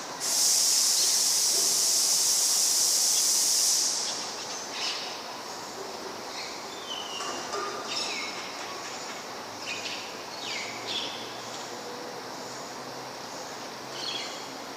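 A loud, steady hiss that starts suddenly and cuts off abruptly after about three and a half seconds. Then faint background noise with scattered bird chirps.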